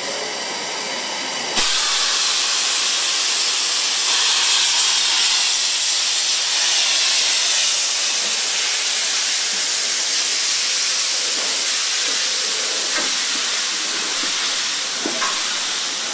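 Steady hiss of steam from a departing 8620-class steam locomotive (No. 58654), setting in abruptly about a second and a half in, with a few light knocks near the end.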